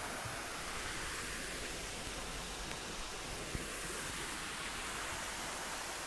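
A steady, even hiss of background noise, strongest in the upper range, with no voice or tone in it.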